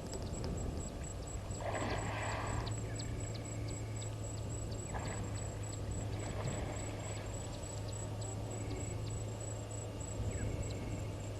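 Waterhole bush ambience: birds giving many short high chirps over a steady high-pitched buzz and a low hum, with a brief noisy rush about two seconds in and a fainter one about five seconds in.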